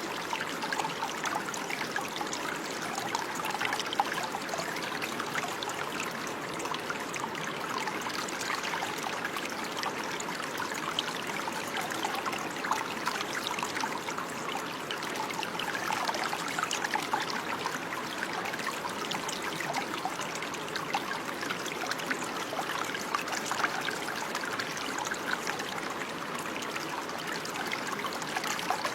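Running water in a small stream, babbling and trickling steadily.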